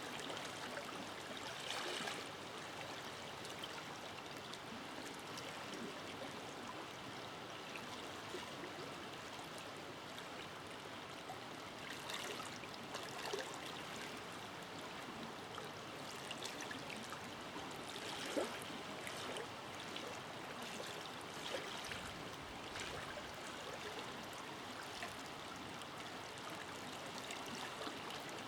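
River water flowing in a steady rush, with brief louder splashes here and there, about 2, 13 and 18 seconds in.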